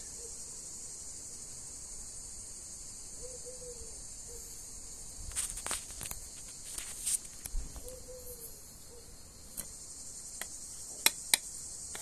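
Steady high-pitched buzzing chorus of cicadas singing, with a few sharp clicks and scrapes scattered through the second half, the loudest two near the end.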